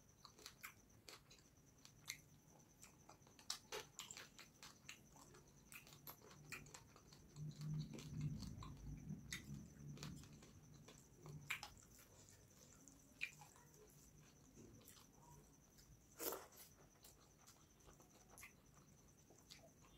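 Faint, close-miked eating sounds: scattered wet clicks and smacks from chewing and from rice and fish curry being squished together by hand on a steel plate. A low murmur rises for a few seconds around the middle.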